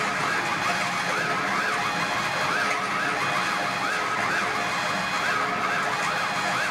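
Live laptop electronic music: several overlapping siren-like tones sweep up and down over and over, above a dense, steady layer of held tones and noise.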